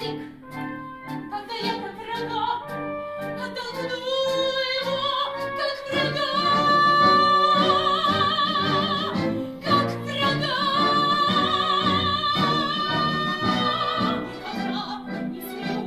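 A vocal trio singing in an operatic style over a rhythmic accompaniment, holding long notes with vibrato from about four seconds in until about fourteen seconds.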